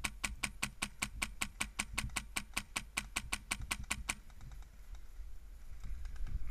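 Polar Star HPA-engined airsoft rifle firing a steady string of shots, about five to six a second, sharp clicking pops that stop about four seconds in.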